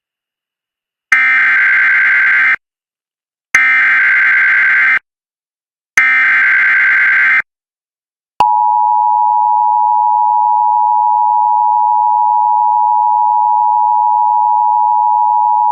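Emergency Alert System SAME header: three identical bursts of digital data tones, each about a second and a half long, with short gaps between them. After a pause, the steady two-tone EAS attention signal starts and holds. Together they mark the start of a new alert, here a severe thunderstorm warning.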